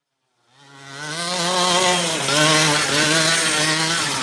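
Raminator RC monster truck driving, its motor running with a loud, steady buzz that fades in about half a second in and whose pitch steps up and down several times with the throttle.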